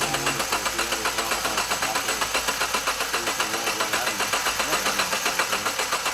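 A 2012 Subaru Forester engine being cranked by the starter with the fuel pump fuse pulled, pulsing evenly about five times a second without catching. It is being cranked to bleed off the remaining fuel-line pressure.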